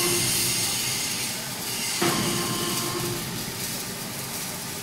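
Electric drive motor of a welding column-and-boom running in short jogs as the boom is moved: a steady hum that stops just after the start, starts again with a sudden knock about two seconds in for about a second and a half, and kicks in once more at the very end, over a steady hiss of workshop noise.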